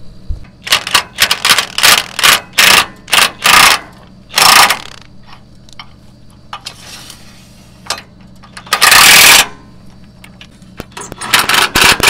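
Cordless impact wrench hammering in a string of short bursts, one longer run about nine seconds in, then more short bursts near the end: loosening and tightening the set screws on a portable sawmill's jack supports.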